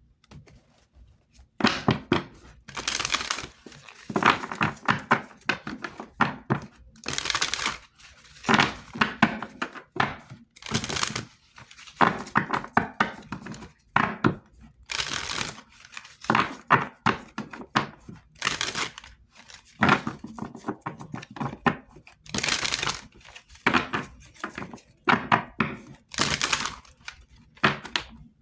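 A deck of cards being shuffled by hand: repeated rustling, crackling bursts of cards sliding and slapping together, one burst every second or so.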